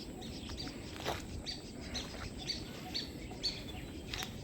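A bird chirping repeatedly, short high chirps about two a second, over a steady low background rumble.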